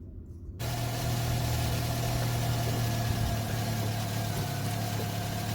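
A car engine idling steadily, coming in suddenly about half a second in with a low, even hum.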